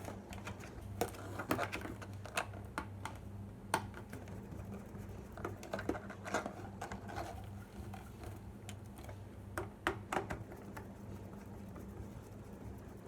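Irregular plastic clicks and taps as the bottom drive-bay cover of a Toshiba Satellite laptop is fitted back into place, over a steady low hum.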